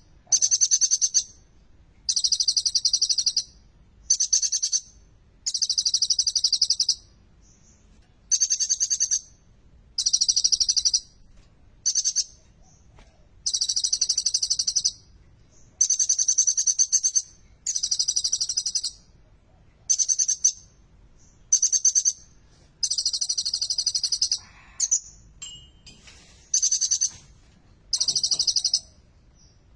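Kolibri ninja sunbird singing: a string of high, rapid trilled phrases, each about a second long, repeated roughly every two seconds with short pauses between, and a few shorter different notes about three-quarters of the way through.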